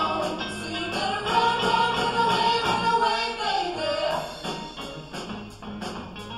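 Pop song played by a band with singers: the sung line ends about four seconds in, and the band carries on with a steady drum beat.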